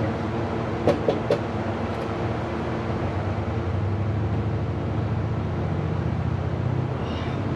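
Steady low mechanical hum, with three quick light metallic clinks about a second in.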